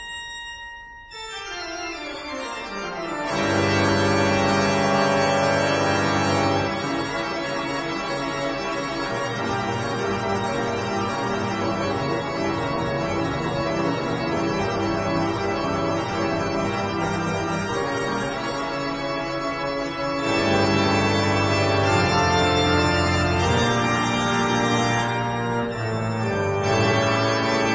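Organ music playing sustained chords, quiet for the first couple of seconds and then swelling to a full, steady level.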